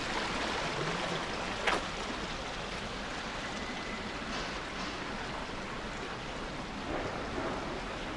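Steady rushing of water flowing down a narrow concrete drainage channel, with one sharp click nearly two seconds in.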